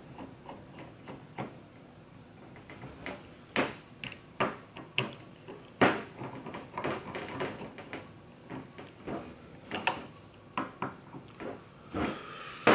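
A Phillips screwdriver driving small screws down into a fuel pump assembly housing, with irregular clicks and light knocks as the tool and the plastic-and-metal parts are handled.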